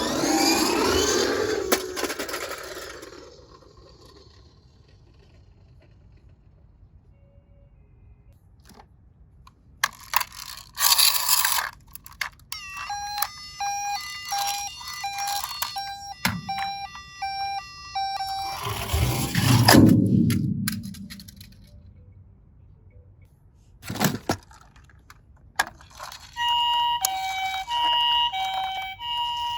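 Japanese ambulance two-tone siren, a high note and a low note alternating, starting near the end. Before it, a stretch of stepped electronic tones plays in the middle, and bursts of rushing noise come near the start and about two-thirds of the way through, with quiet gaps between.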